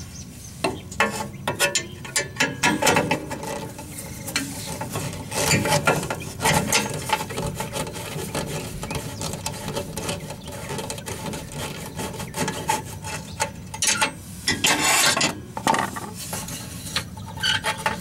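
Socket ratchet wrench clicking in repeated strokes, backing out the rusty hex-head bolt that holds a gas furnace's ceramic spark igniter bracket.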